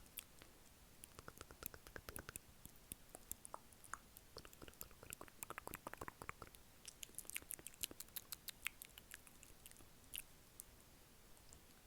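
Close-miked ASMR mouth sounds: quick, irregular flurries of small wet clicks and smacks from lips and tongue.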